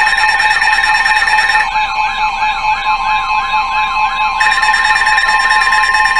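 Weather radio alert tones: steady high tones held together with a fast siren-like warble, heralding a severe thunderstorm warning. Some of the steady tones drop out for a few seconds in the middle, leaving the warble.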